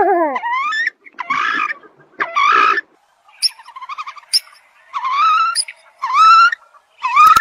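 American coots calling: a series of short nasal calls, about one a second, several of them rising in pitch, with a few faint high chirps and clicks between them.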